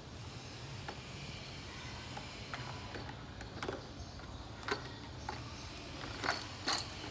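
Scattered light clicks and clacks of plastic toys and bottles knocked together as a hand rummages in a plastic basket, with a few sharper clacks in the second half, over a steady low hum.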